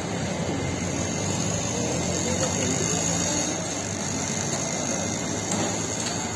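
Steady roadside street noise, a continuous hum of traffic with no single event standing out.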